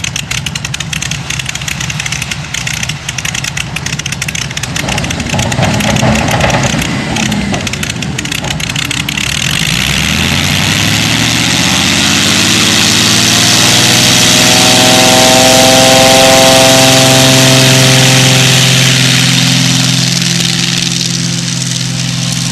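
Fletcher FU24-950 agricultural plane's piston engine and propeller idling with a choppy sound, then opening up about ten seconds in: the engine note rises in pitch and grows louder as the plane starts its takeoff roll, then eases slightly as it moves away.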